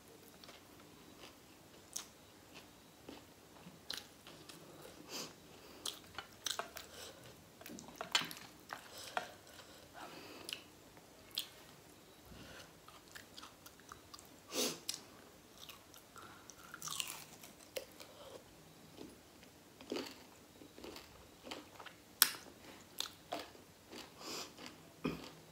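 A person chewing and biting grilled pork sekuwa and rice, with many small irregular crunches and wet mouth clicks.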